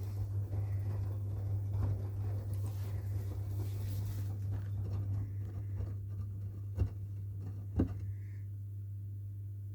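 Front-loading washing machine running a 60° wash, with a steady low hum. Laundry is tumbling and pattering in the drum, with two short knocks about seven and eight seconds in. After that the tumbling stops and only the hum remains.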